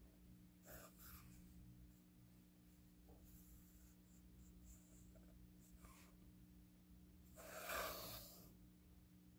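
Near silence: room tone with a faint steady hum, and one brief soft rush of noise near the end.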